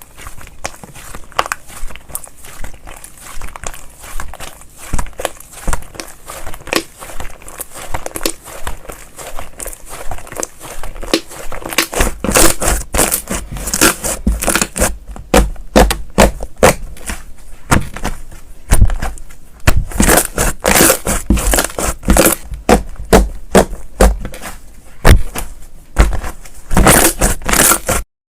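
Slime being pressed and squished by hand: a dense stream of sticky crackling pops and clicks, louder and busier in the second half, cutting off suddenly near the end.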